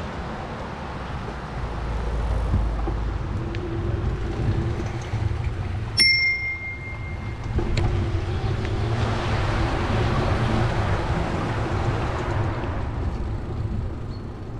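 A bicycle bell is struck once about six seconds in, its single high tone ringing for just under two seconds, over the steady low rumble of riding. A few seconds later a passing vehicle swells and fades.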